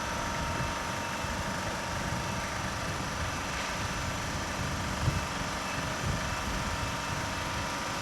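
Steady mechanical hum and hiss with a faint high whine, and a single low knock about five seconds in.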